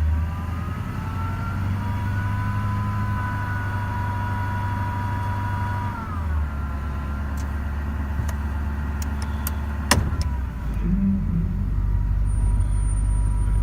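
2011 Ford F-250's 6.7 L Power Stroke diesel revved in park, with a high whine over the engine note that climbs with the revs, holds, then drops away as the engine falls back about six seconds in; the whine is the sign of a failing alternator. A single sharp click about ten seconds in.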